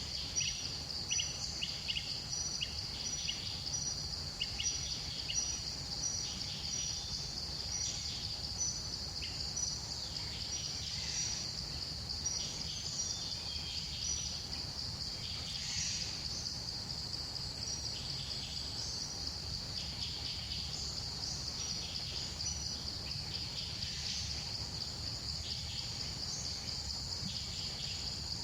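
Steady high-pitched insect chorus, with scattered bird chirps over it and a low steady rumble underneath.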